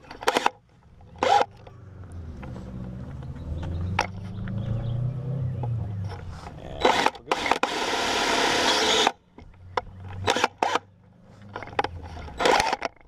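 Cordless drill: sharp clicks as its chuck is worked to fit a larger bit, then the motor running with its pitch rising and falling, then about a second and a half of harsh grinding as the bit cuts into the rack's metal bracket, with more clicks near the end.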